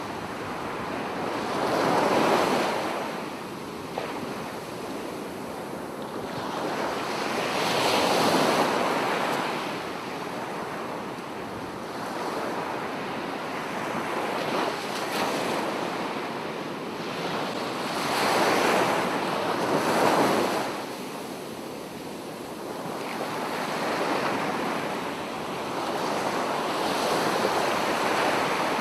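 Sea surf breaking on a sandy beach, a steady rush of water that swells and fades every several seconds as waves come in. Wind buffets the microphone.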